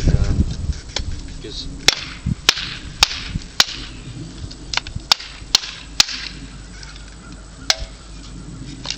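Machete blade chopping into hardwood: about ten sharp strikes, most in a quick run roughly half a second apart, then two more spaced out near the end.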